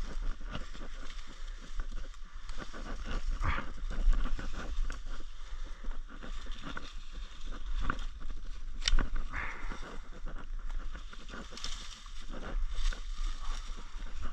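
Leaves and brush rustling with many small sharp clicks as branches are cut with hand loppers; the loudest snip comes about nine seconds in.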